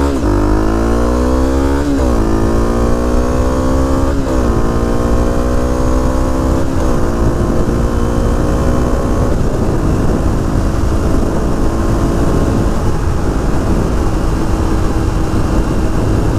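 Honda CRF250L's single-cylinder four-stroke engine accelerating through the gears. Its pitch climbs and drops back at upshifts about two, four and seven seconds in, then holds steady at cruising speed.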